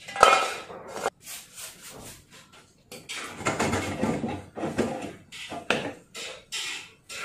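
Repeated rubbing or scraping strokes, short ones with gaps between and a denser run a few seconds in, with a sharp knock near the start.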